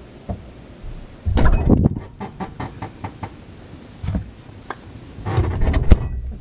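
Items being handled in an open refrigerator: irregular rustling and clattering with scattered clicks and knocks, a sharp click near the end.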